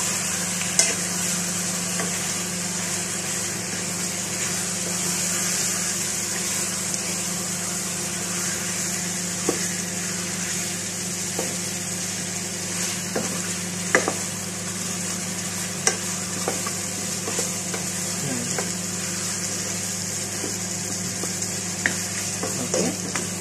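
Chicken pieces sizzling as they fry in oil and garlic in a pot, stirred with a spatula that knocks sharply against the pot a few times.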